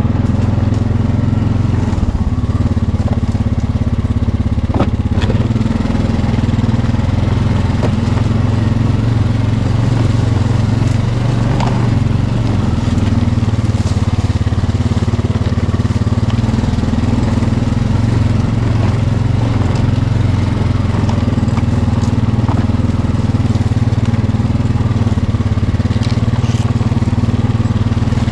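Four-wheeler (ATV) engine running steadily under way, with a few light knocks.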